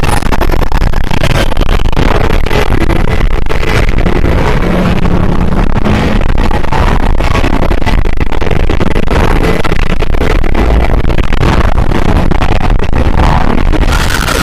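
A very loud, heavily distorted noise that runs on without a break, with a deep rumble underneath.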